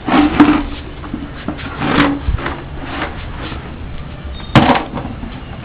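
Blue plastic tub knocked and scraped about on a concrete floor by a toddler, in a few short bursts, with a sharp knock about four and a half seconds in.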